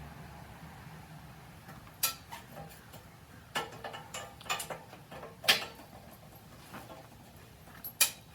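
A handful of sharp metallic clicks and clinks, spaced irregularly, as a steel rod and hand tools are handled; the loudest comes about halfway through.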